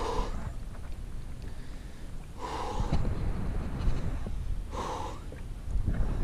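A man breathing hard and gasping against the cold, three loud breaths about two and a half seconds apart.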